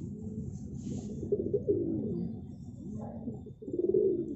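Domestic pigeons cooing: low, rolling coos overlapping one another, loudest near the end.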